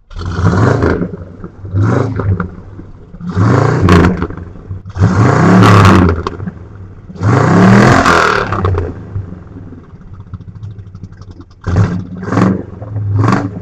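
1965 Pontiac GTO's 389 V8 with Tri-Power (three two-barrel carburettors) revved repeatedly through its dual exhaust. There are five long revs that climb and fall back, a spell of idling, then four short quick blips near the end.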